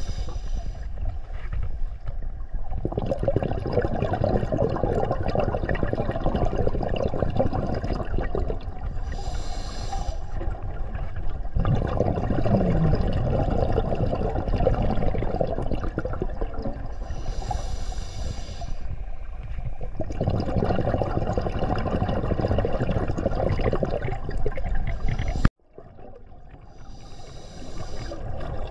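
Scuba diver breathing underwater through a regulator. Each breath is a short hiss on the inhale followed by several seconds of rushing exhaled bubbles, about one breath every nine seconds. The sound cuts out abruptly near the end and then fades back in.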